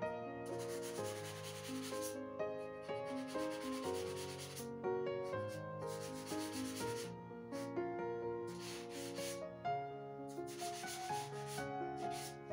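Black drawing pencil shading on paper: about five long scratchy strokes, each lasting a second or two, rubbing back and forth across the sheet. Background music plays under it.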